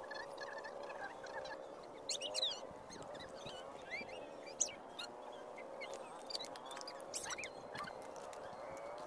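Many birds calling at once in a steady chorus, with a few sharper, higher chirps about two, four and a half and seven seconds in.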